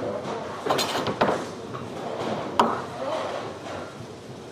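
Candlepin bowling alley ambience: sharp wooden knocks and clatter of balls and pins, a cluster of them about a second in and another a little later, over background chatter.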